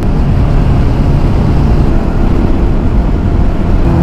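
Bajaj Dominar motorcycle being ridden at speed: a steady rush of wind over the on-bike microphone with the engine's drone underneath.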